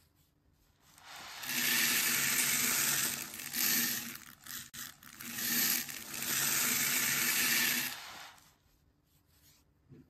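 A mass of small plastic beads pouring off a tray onto a silver oval dish in a dense rattling rush. It comes in two long pours with a broken, patchy stretch between them, then fades out near the end.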